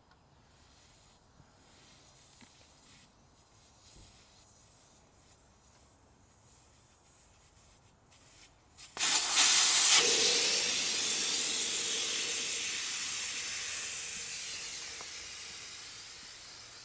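Faint small clicks and scrapes as the valve core is unscrewed from a motorcycle tire's valve stem. About nine seconds in, air bursts out in a sudden loud hiss that slowly fades as the tire deflates.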